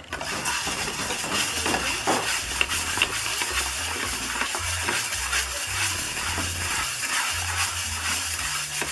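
Hand rubbing and scraping wet clay pigment in a metal bowl, a run of short gritty strokes and clicks, over low stepped humming notes.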